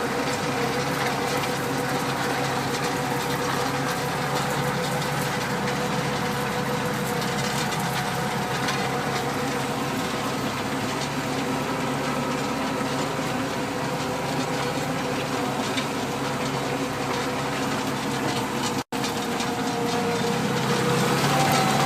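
Massey Ferguson tractor engine running steadily under load while pulling a plough, with a brief break near the end.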